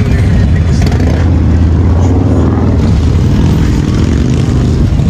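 Motorcycle engines running loud and close, one rising and falling in pitch around the middle as it is revved.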